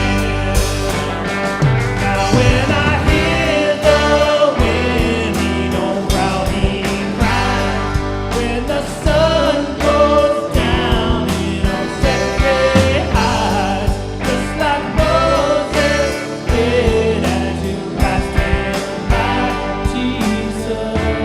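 Rock-style worship band music with drums, bass and electric guitar keeping a steady beat under a wavering lead melody, during an instrumental stretch between sung lines.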